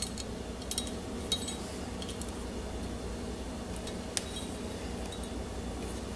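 A few light metallic clicks and clinks as small steel parts are fitted into a Glock 35 pistol slide, spread over the first few seconds, over a steady low hum.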